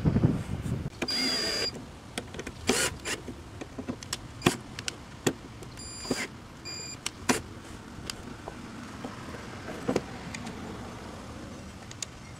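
Small electric power driver whining in short bursts as T30 Torx screws are run back in to hold the window motor on its regulator, among sharp clicks and clinks of tools and metal parts being handled.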